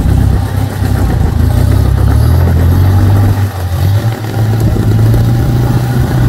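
Off-road Jeep engine running hard and revving under load. The note dips about halfway through, then holds steady.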